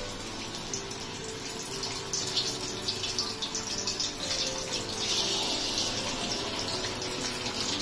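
Batter-coated chicken lollipops deep-frying in hot oil: a steady sizzle with crackling, growing louder about two seconds in and strongest around five seconds in as a fresh piece goes into the oil.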